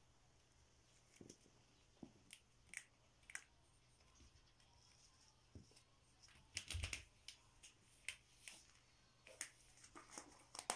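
A cat pawing and scrabbling on a ribbed foam mat as it bats at a rubber band: faint, scattered sharp clicks and taps, with a louder flurry and a soft thump about seven seconds in.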